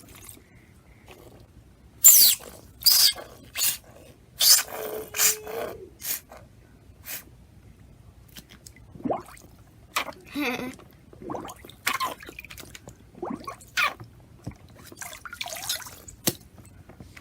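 Squeeze toy spraying water into a container of water, giving a series of irregular short splashes and drips.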